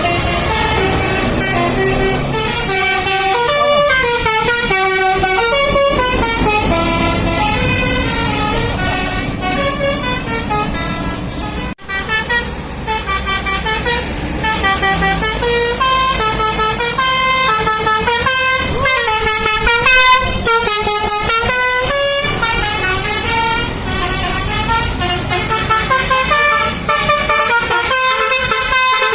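A bus's basuri musical air horn (telolet) playing a tune of stepping notes, with road vehicle noise underneath. It drops out for an instant about twelve seconds in.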